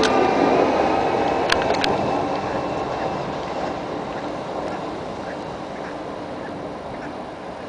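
Regional train pulling away along the platform, its running rumble fading steadily as it recedes. Two sharp clicks come close together about a second and a half in.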